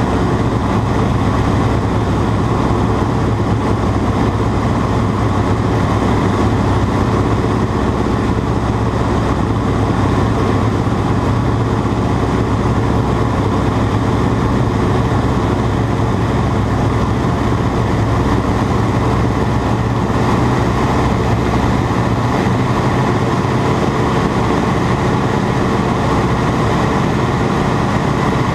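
Ag Cat agricultural biplane's engine running at a steady speed, a loud, even drone with no change in pitch.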